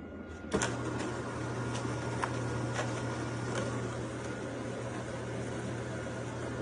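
A steady mechanical hum with an even whirring noise, and a few light clicks over the first few seconds.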